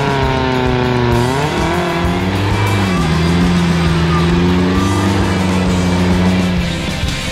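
Small off-road 4x4's engine running under load as it crawls through mud, its pitch dipping about a second in and then holding steady again.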